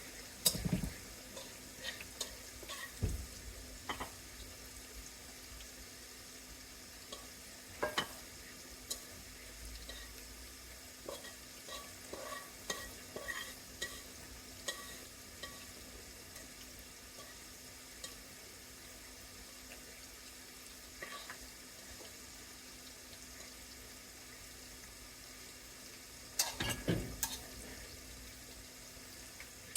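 Fried rice and egg frying in a pan with a steady sizzle, with scattered scrapes and taps of a spatula stirring it, busiest near the end.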